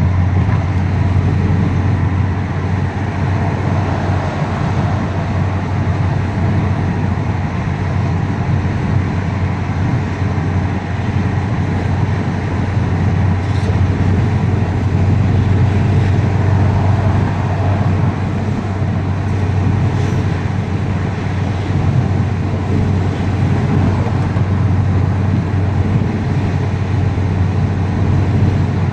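Steady road and engine noise of a car driving along, heard from inside the cabin, with a constant low drone.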